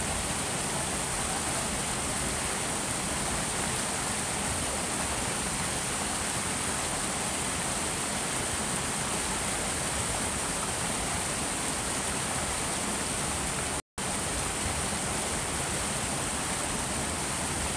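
Water rushing steadily over a small rocky cascade into a stream pool. The sound cuts out completely for an instant about fourteen seconds in.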